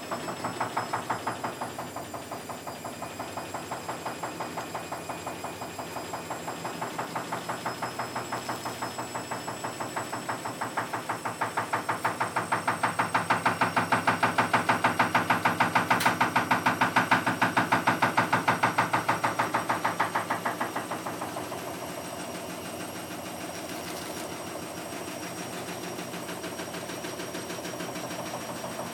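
Washing machine with its transit bolts still fitted, spinning with a fast, even knocking as the drum slams the locked-in tub. The knocking grows louder about halfway through and eases off again near the end.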